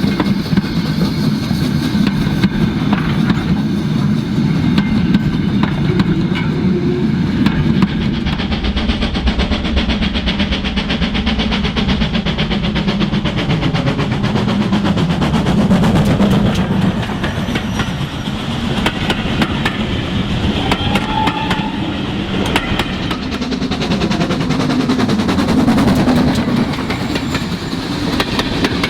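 OO gauge model train running along the layout's track: a steady electric motor hum under a dense run of rapid clicks from the wheels on the rails, with the pitch drifting up and down as the speed changes.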